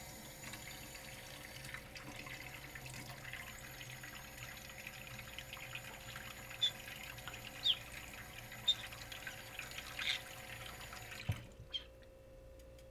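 Kitchen tap running and splashing onto a plastic plate in a stainless steel sink as a green-cheeked conure bathes under it, with a few short high plinks. About eleven seconds in there is a low knock and the running water stops.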